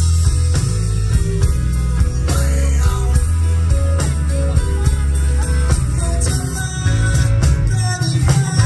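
Live rock band playing an instrumental passage through a loud PA: electric guitar and keyboard over bass and drums.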